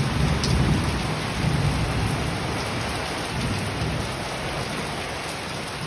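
Heavy rain pouring down, a dense steady hiss, with a low rumble underneath that is strongest in the first two seconds and slowly eases.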